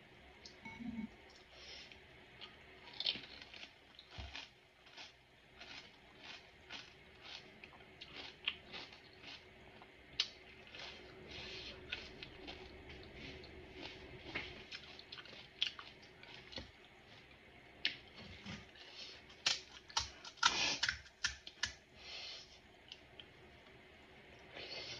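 Close-up eating of pani puri: crisp puri shells crunching and wet mouth clicks while chewing, as many short, irregular crunches, with a louder burst of them about twenty seconds in.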